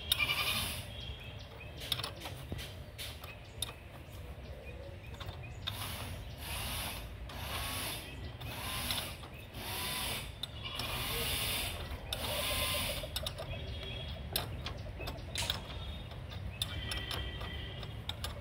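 Ratchet spanner clicking in repeated strokes as it turns the forcing screw of a gear puller, drawing the crank off a rice transplanter.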